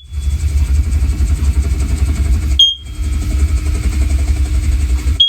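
Talking smoke alarm giving three short high chirps about two and a half seconds apart as its button is held to link it with the other alarms, over a steady low rumble.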